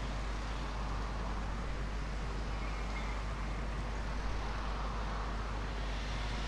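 Steady background noise: an even hiss over a constant low hum, level throughout, with no speech.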